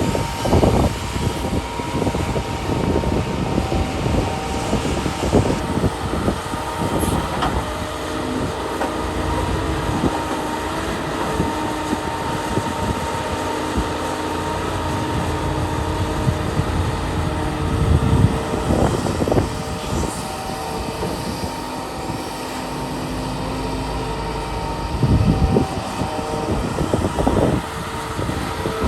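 Heavy diesel earthmoving machinery, an excavator working with dump trucks, running steadily with several steady droning tones over its engine noise. A few heavy knocks and clunks break in, with clusters about 18 seconds in and again about 25 seconds in.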